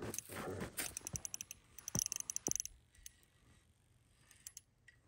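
Fishing reel clicking rapidly for about three seconds as a hooked crappie is reeled in, then a few scattered clicks.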